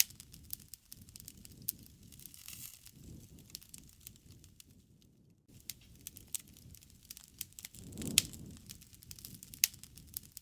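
Wood fire crackling: scattered sharp pops and snaps over the low rush of the flames, with one louder pop about eight seconds in.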